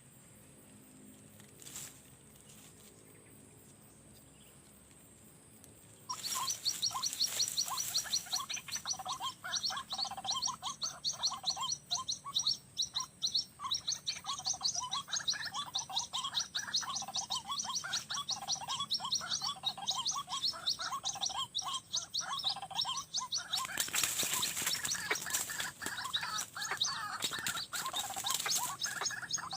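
White-breasted waterhen (ruak-ruak) calls: a dense, rapid run of repeated notes that starts abruptly about six seconds in and carries on. A rush of noise joins it about three-quarters of the way through.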